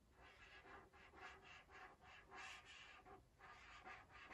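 Faint strokes of a marker writing a signature on paper, several short scratchy strokes.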